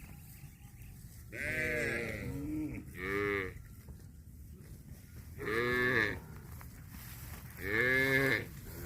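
Cattle mooing: four short calls spaced about two seconds apart.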